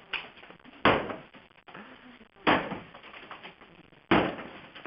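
A 12-lb sledgehammer smashing into a DJ booth: three heavy blows about a second and a half apart, each crash trailing off over about half a second.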